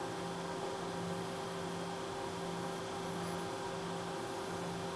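Five-axis machining center running while its end mill finish-cuts a wheel-shaped part: a steady machine hum with a faint high whine. A lower tone comes and goes several times.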